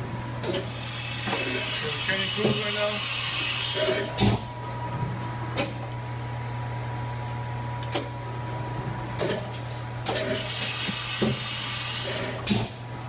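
Fadal VMC2016L CNC vertical machining center running its spindle warm-up, with a steady hum and a steady whine. Coolant spray hisses in two long stretches, from the start to about four seconds and again from about ten to twelve seconds. Several sharp knocks fall between them, the loudest about four seconds in.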